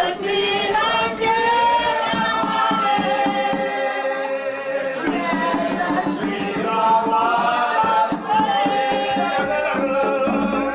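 Spiritual Baptist congregation singing a hymn together without words spoken, several voices holding long, drawn-out notes that slide from one pitch to the next.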